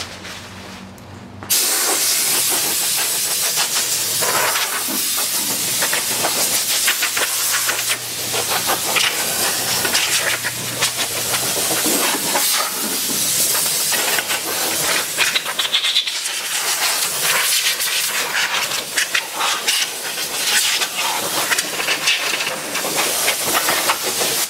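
Compressed air hissing from a blow gun on an air hose as it blows dust out of and around the air filter housing. It starts about a second and a half in and runs on steadily, swelling and dipping a little.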